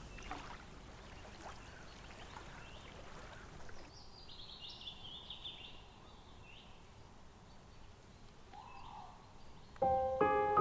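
Faint outdoor ambience with a bird calling: a quick run of high chirps about four seconds in, then a few faint single high notes. Piano music comes in near the end.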